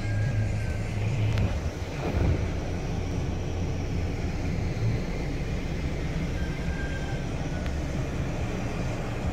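Steady low rumble of a vehicle, heard inside a minivan's cabin.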